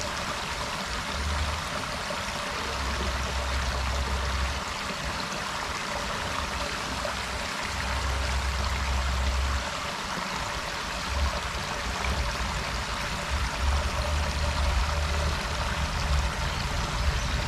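Steady rush of water spilling over a small irrigation dam into a river pool, with irregular low rumbles underneath.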